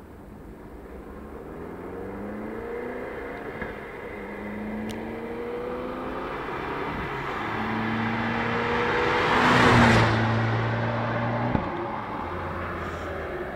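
Fiat 500 Abarth on its stock exhaust accelerating hard through the gears. Its 1.4-litre turbocharged four-cylinder climbs in pitch, drops at each of two upshifts, and grows louder as it approaches. It is loudest as the car passes about ten seconds in, then falls to a lower, steadier note.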